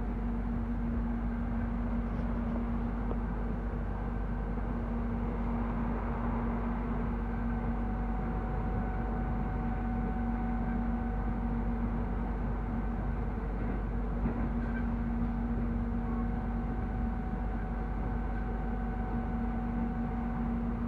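Moving electric airport train heard from inside the passenger cabin: a steady running rumble with a constant hum.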